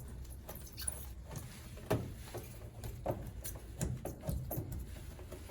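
Scattered light clicks and taps of hands screwing a nut back onto the bracket of an over-the-sink light fixture, over a low steady hum.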